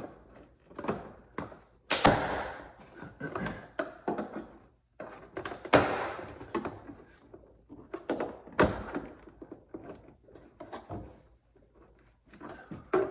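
Plastic door trim panel of a Ford Focus ST being prised off the door: its push clips pop loose and the panel knocks against the door, with three sharp snaps a few seconds apart and smaller clicks and rubbing between.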